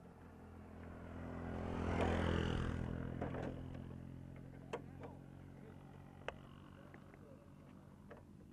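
A vehicle passes on the road, swelling to its loudest about two seconds in and fading away by about four seconds, over a steady low hum. A few sharp clicks follow from hands handling a metal clip and a plastic bottle.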